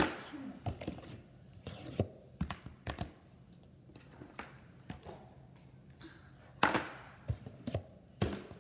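Plastic sand toys being handled and knocked against a tabletop: irregular taps and thunks, the loudest about two-thirds of the way through.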